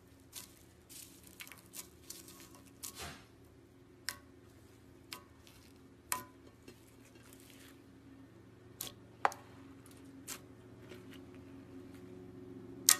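Red slime packed with foam beads being squeezed and pressed by hand in clear slime: soft wet squishing with sharp clicks and pops, a quick cluster in the first few seconds, then single pops every second or so, the loudest one near the end.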